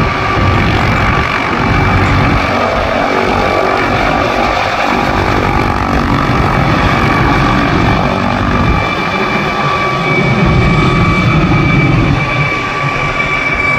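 Helicopter running continuously: a loud, steady rotor and engine noise with a constant high-pitched whine, swelling slightly about two-thirds of the way through.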